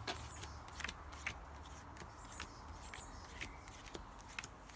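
Cards being dealt one at a time onto a cloth close-up mat: faint, irregular soft clicks and slaps as each card lands.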